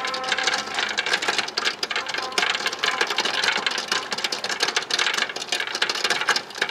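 Dense, rapid mechanical rattling: many sharp ticks close together, loud and continuous.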